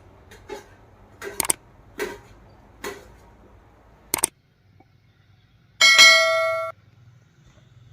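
Several light knocks and clicks, then about six seconds in a single loud clang from a struck metal vessel that rings for almost a second before it is damped.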